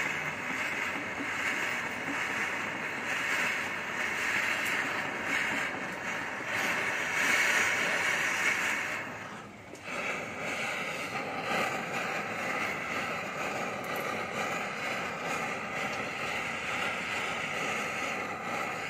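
Steady rushing hiss of a gas torch flame, dipping briefly about halfway through.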